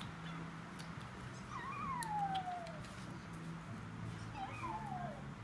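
Recorded puppy whimpering played back for the dogs to hear: two high, thin falling whines, a longer one a second and a half in and a shorter one near the end, over a steady low hum.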